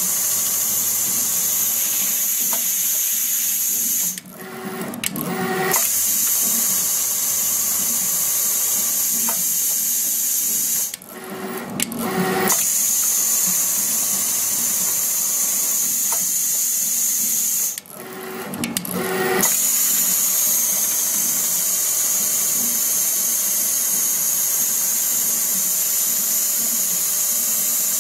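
Richpeace automatic pattern sewing machine stitching steadily with a high hiss. Three times it cuts out briefly and then builds back up.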